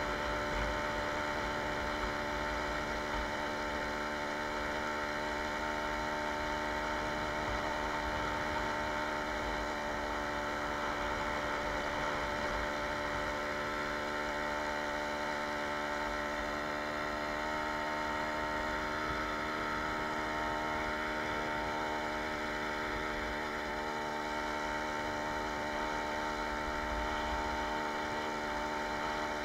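Jawa 20 Pionýr moped's 50 cc single-cylinder two-stroke engine running at an even cruising speed under way, its pitch holding steady.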